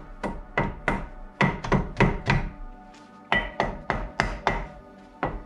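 Rapid blows on a Land Rover Discovery 3 rear brake disc, about three to four a second with a short pause midway, each with a brief metallic ring. The disc is being knocked to free the handbrake shoes after their adjuster screw has been backed off.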